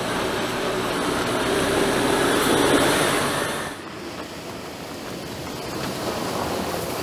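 Mercedes-Benz Arocs 8x8 dump truck's diesel engine running as the truck drives through muddy water, with water splashing and tyre noise. The sound drops suddenly about four seconds in, then builds again as the truck comes on.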